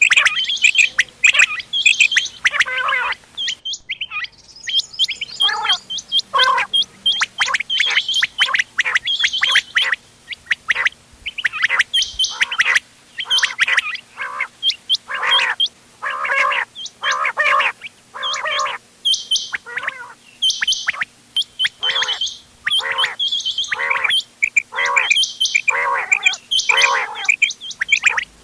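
Several quail calling over one another: a dense, fast run of short, sharp repeated calls, with a brief break about four seconds in.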